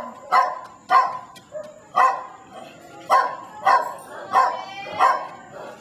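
A dog barking repeatedly, about eight short barks spaced half a second to a second apart.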